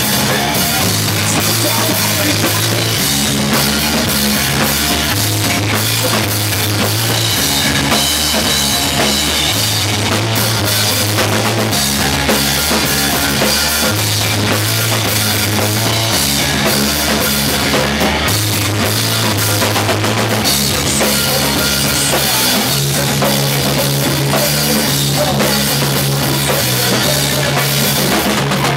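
Live rock band playing an instrumental passage, loud: drum kit, electric guitar and a bass line repeating a riff that changes note about every two seconds.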